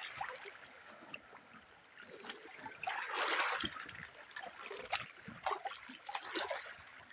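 Water poured over hands being rinsed, with one longer gush about three seconds in and dribbling and small splatters between.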